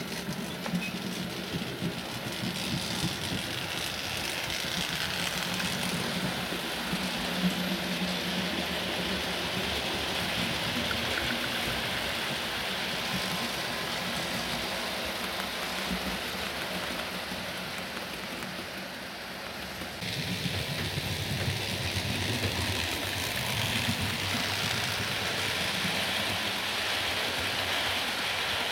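Model trains running on the layout: wheels rolling along the rails with a steady rushing hiss over a low motor hum. The sound changes suddenly about twenty seconds in, becoming louder and deeper.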